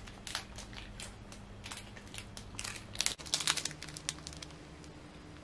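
Plastic Samyang sauce sachet crinkling as it is torn open and handled, in irregular crackles and clicks that are busiest about three seconds in.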